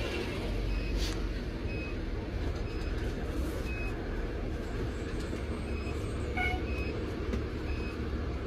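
Fire engine's diesel engine running with a steady low rumble, heard from inside the cab as the truck drives. A faint short high beep repeats about once a second.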